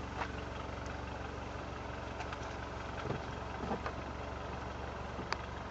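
Mini Cooper R56's 1.6-litre four-cylinder engine idling steadily through an aftermarket FSW exhaust system from the catalytic converter back, heard from inside the open boot.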